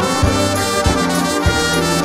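Background instrumental music with brass carrying the melody over a steady beat.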